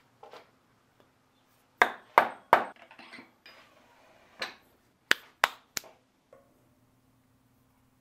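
Wooden mallet knocking a bark-covered fir log onto a wood lathe's drive spur: three quick blows about two seconds in, then a few sharper clicks as the log is locked between the lathe's centres.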